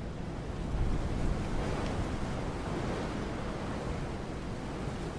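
Steady rushing wind noise that swells a little about a second in, with no chime tones ringing out.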